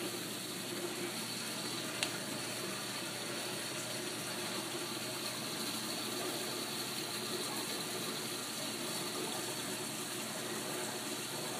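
Steady rush of water pouring from a saltwater aquarium's overflow drain pipe into the sump below the tank. A single sharp click about two seconds in.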